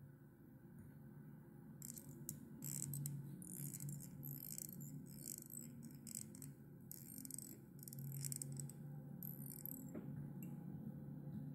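Faint, irregular scratchy rasps of 8/0 tying thread being wrapped at the hook eye from a bobbin to build the head of the fly, with a low steady hum underneath.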